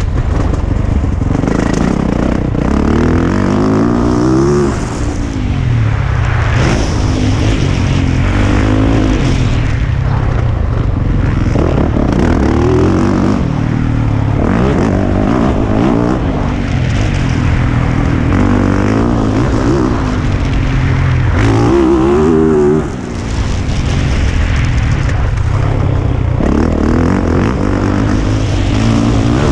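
2020 Yamaha YZ450F's single-cylinder four-stroke engine ridden hard on a motocross track, the revs climbing and falling over and over with the throttle. The level drops briefly where the throttle shuts, about five seconds in and again a little past twenty-two seconds.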